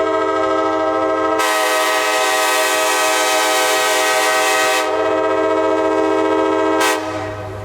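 Nathan K5LA five-chime train horn sounding one long, steady blast that cuts off about seven seconds in. A rushing noise rides over the horn from about a second and a half to five seconds in.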